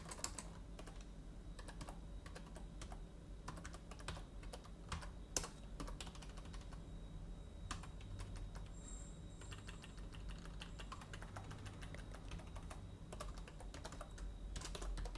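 Computer keyboard being typed on: faint, irregular keystrokes, with quicker runs of typing about halfway through and again near the end.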